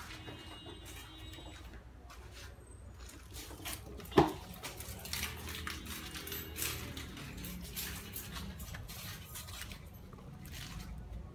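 Handling noise from a handheld camera carried around a car: scattered light clicks and rustles over a low steady hum, with one sharp knock about four seconds in.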